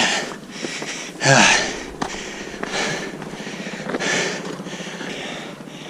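A person breathing hard and puffing, out of breath after a long stair climb, with a short voiced groan about a second in.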